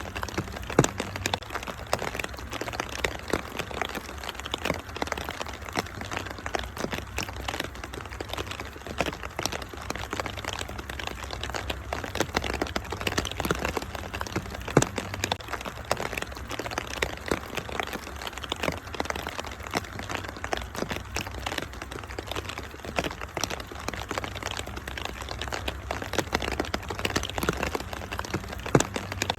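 Wood fire crackling and popping in a fireplace, with many irregular sharp snaps, over a steady wash of rain and a low rumble.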